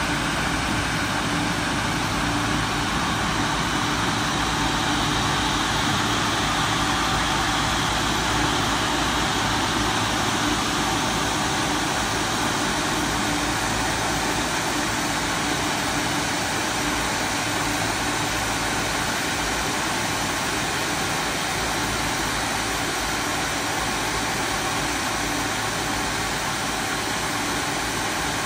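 Steady mechanical drone with several constant hums and a faint higher whine, unchanging throughout, like running machinery on an airport ramp.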